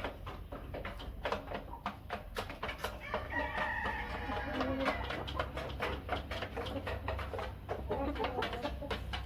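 Light Columbian Brahma rooster crowing once, a long call starting about three seconds in and lasting about two seconds. Many short clicks and taps surround it.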